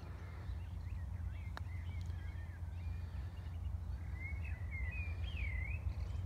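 Small birds chirping and singing, busiest near the end with a quick run of warbling notes and a rising-and-falling whistle, over a steady low rumble. A single sharp click about one and a half seconds in.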